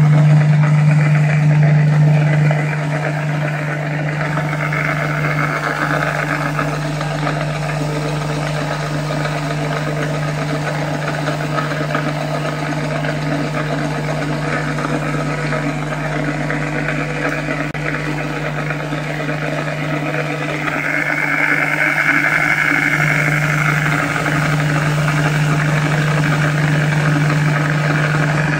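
Iskra corded electric drill's motor running steadily with no load, its chuck spinning at about 4,800 rpm, giving a constant hum and whir. It is a little louder for the first couple of seconds and again over the last third.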